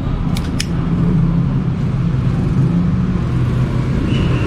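A steady low engine rumble from a motor vehicle running nearby, with two light clicks about half a second in.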